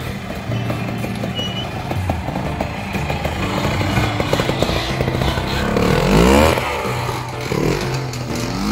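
Vintage single-cylinder trials motorcycle picking its way through a section at low revs, blipped hard so the engine revs up and falls back about six seconds in, with another quick rev near the end.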